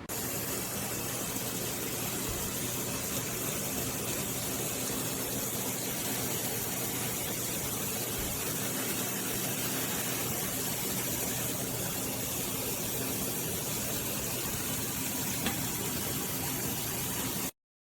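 A steady hiss with a faint low hum under it, starting abruptly and cutting off suddenly near the end.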